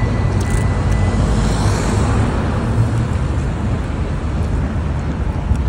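Road traffic passing along a city street: a vehicle swells louder and fades about two seconds in, over a steady low rumble.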